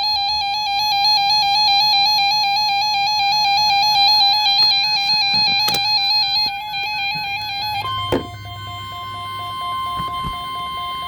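Weather radio emergency alert tones: a fast electronic warble until about eight seconds in, then the steady weather-radio attention tone takes over, with a pulsing lower tone beneath it and a couple of clicks at the changeover. The alert signals that a warning-level broadcast, here a severe thunderstorm watch, is about to be read.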